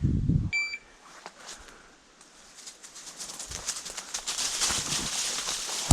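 Footsteps crunching through brush and dry leaves, a dense crackling that grows louder over the last few seconds, after a short low thump at the start and a single short electronic beep about half a second in.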